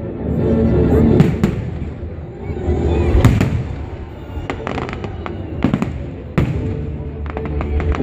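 Fireworks display: shells bursting one after another at irregular intervals, sharp bangs over a continuous low rumble, the loudest about three seconds in.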